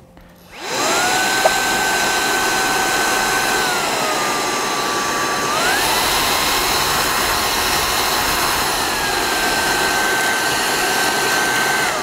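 Proscenic P10 Pro cordless stick vacuum switched on, its motor whining up to speed, then running with a steady whine as the suction level is changed: the pitch steps down, jumps higher, drops back again, and the motor winds down as it is switched off at the end.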